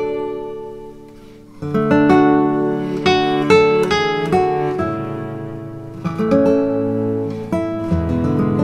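Background music played on acoustic guitar: plucked notes and strummed chords. It dips quieter about a second in, then comes back louder with a fresh strum.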